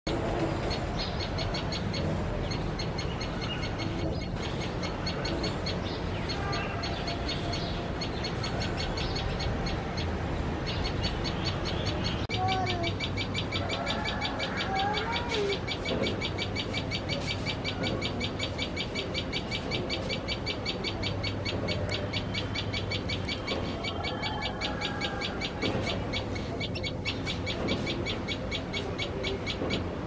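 Common tailorbird calling: a rapid, evenly repeated run of sharp high notes, broken at first, then almost unbroken for most of the rest. It is the agitated calling a tailorbird makes at cats near its chicks. Lower whistled notes of another bird come and go beneath it.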